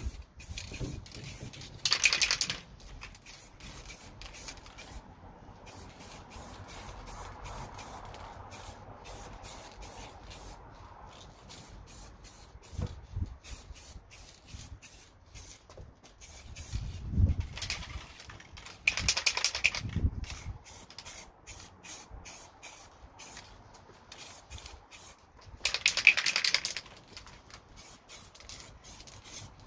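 Aerosol spray paint can spraying in short bursts of hiss, three strong bursts with fainter spraying and rapid ticking between them.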